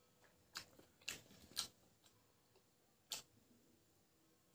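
Faint, sharp mouth clicks and smacks of a person chewing pig intestine: three in the first two seconds, about half a second apart, and one more about three seconds in.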